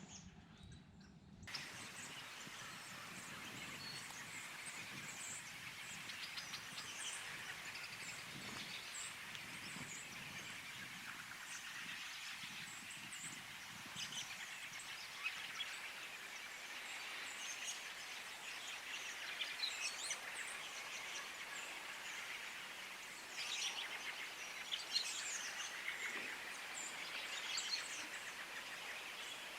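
Many scattered songbird chirps and calls over a steady outdoor background hiss.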